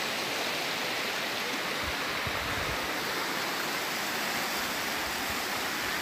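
Steady rushing of a flowing stream, with a few soft low thumps about two seconds in.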